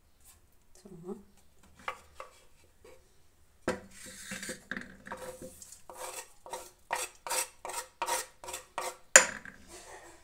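Knife scraping chopped herbs off a wooden cutting board into a metal pressure cooker, a quick run of clicks and knocks of the blade on the board and the pot rim, starting about four seconds in, with one sharp knock near the end.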